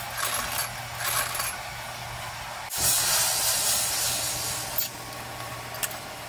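Gas torch flame hissing steadily for about two seconds as it heats a gold strip red-hot, cutting off with a click. Before it, a quieter stretch of light metallic handling at a jeweler's rolling mill.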